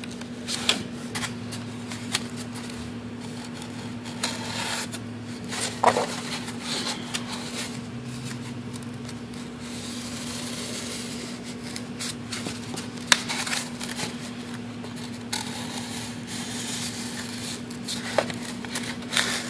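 Snap-off utility knife blade slicing through a foam wing: irregular scratching and creaking of the blade in the foam, with a few sharp clicks, over a steady low hum.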